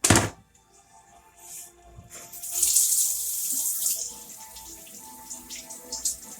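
Kitchen sink tap running as a steak knife is rinsed under it, strongest for a second or two in the middle, then running lighter with small clatters. A sharp knock right at the start is the loudest sound.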